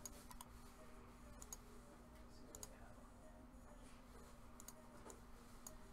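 Near silence with faint, irregular clicks, several in quick pairs, from someone working at a computer, over a low steady hum.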